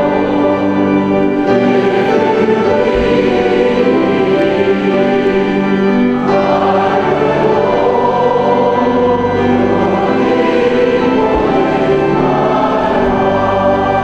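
Church choir singing, many voices holding sustained chords that change every few seconds.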